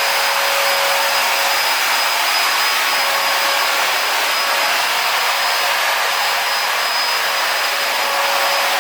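Motorized disinfectant sprayer or fogger running steadily: an even blowing hiss with a thin steady whine underneath.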